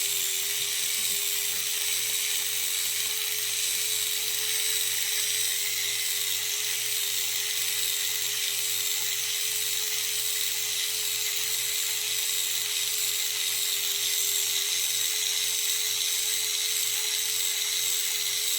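Small handheld electric resin mixer running steadily as it stirs resin and hardener in a cup, an even motor whine.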